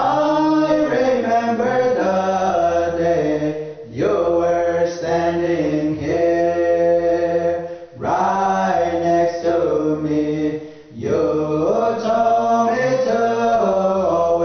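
Men singing a Pueblo Native hand drum song together in a chant-like style, in long held phrases that break briefly about every four seconds.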